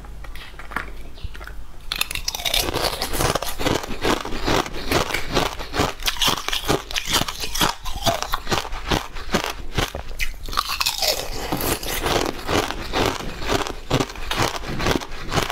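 Close-miked crunching and chewing of crunchy sweets: a dense run of crisp cracks and crackles that starts about two seconds in.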